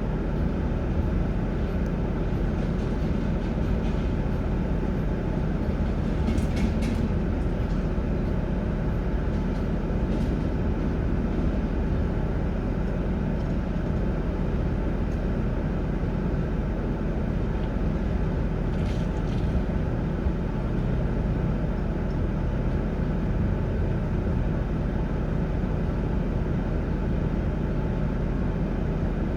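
A vehicle's steady running rumble, with a couple of faint clicks.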